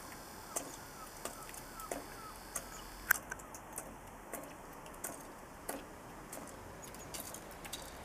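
Blackbird pecking mealworms from a feeding dish: irregular sharp taps and clicks of its beak against the dish, the loudest about three seconds in.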